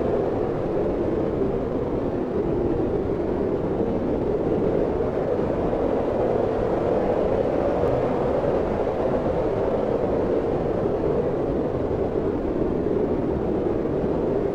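Wind blowing steadily, a constant low rushing noise.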